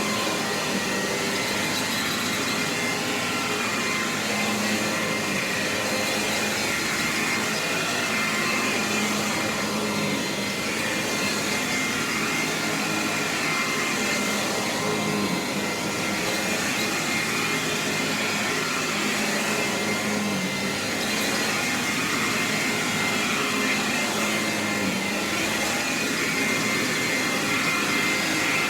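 A 1935–36 Hoover Model 475 upright vacuum cleaner running steadily, its motor and fan giving an even rushing noise with a faint high tone.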